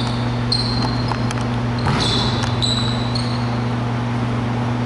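Several short squeaks of sneakers on a hardwood gym floor, a few tenths of a second each, over a steady low hum.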